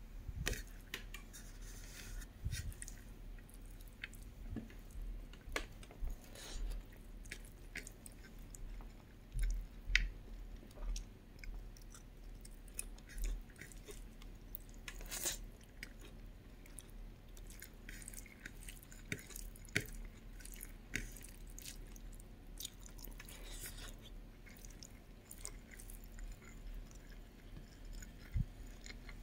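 A person chewing and biting pork curry with rice close to the microphone: irregular short clicks and smacks of the mouth, a few louder ones about ten and fifteen seconds in.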